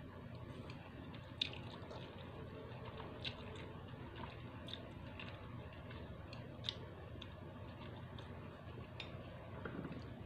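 Close-up mukbang eating of Indomie soto instant noodles: quiet chewing and slurping of noodles, with a few short sharp clicks scattered through, over a steady low hum.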